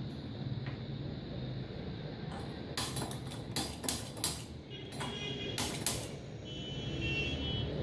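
A few sharp knocks and clinks of cooking utensils against a pan or kadai, clustered from about three to six seconds in, over a steady low hum.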